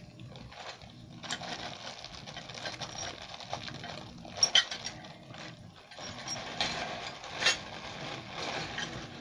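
Irregular small mechanical clicks and rattles over a low rustling, with sharper clicks about four and a half seconds in and twice more towards the end.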